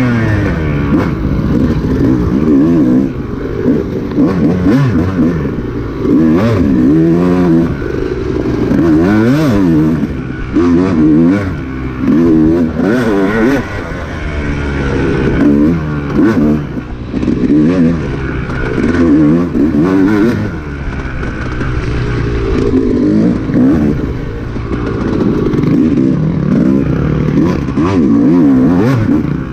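Off-road dirt bike engine revving up and falling back over and over as the throttle is opened and closed, with knocks and clatter from the bike over rough ground.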